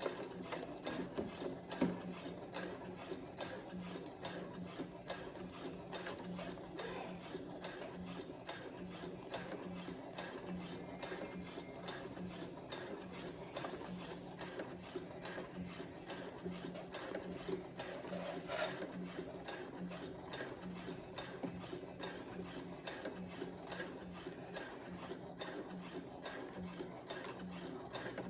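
Brother CS7000X computerized sewing machine stitching a seam steadily, its needle mechanism running in a fast, even rhythm of ticks, with a single sharp click about two seconds in.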